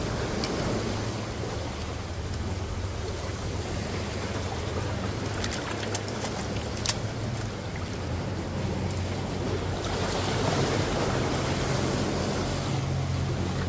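Sea waves washing against the rocks under a steady low rumble, with a few light splashes and clicks around the middle as a hand rubs raw chicken pieces in a metal bowl of water.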